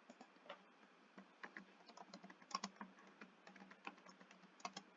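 Faint typing on a computer keyboard: a quick, irregular run of keystrokes, the loudest about halfway through.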